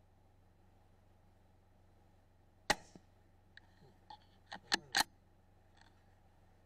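A single shot from a CZ 457 .17 HMR bolt-action rimfire rifle, a sharp crack with a short echoing tail, followed about a second later by a quick run of five or six metallic clicks over a second and a half as the bolt is worked to chamber the next round.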